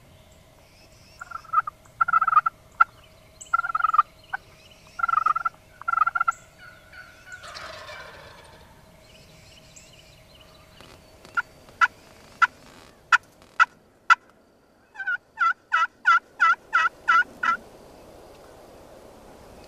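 Wild turkeys calling: a run of yelps, a rattling gobble about eight seconds in, then sharp clucks, and a fast series of about ten yelps near the end.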